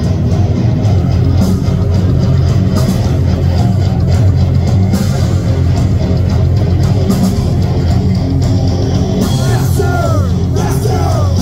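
Live heavy metal band playing loud through a PA: distorted electric guitars, bass guitar and drums. About nine seconds in, a crash cymbal and a bending lead line rise above the riffing.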